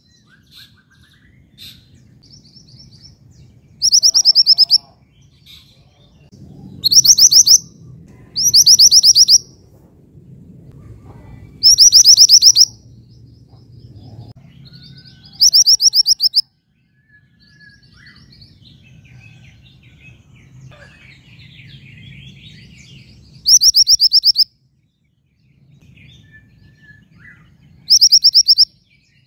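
Female mantenan gunung songbird calling: seven loud, high, rapid rattling trills of under a second each, spaced a few seconds apart, with faint softer chirps between them. This is the female's call to draw a male.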